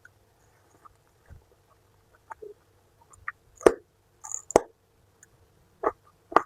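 Close-miked eating sounds of someone chewing jengkol: wet smacks and clicks of the mouth, irregular, with four louder sharp smacks in the second half.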